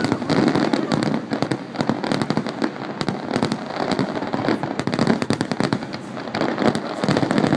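Fireworks barrage: many shells bursting in quick succession, a continuous rapid crackle of pops and bangs.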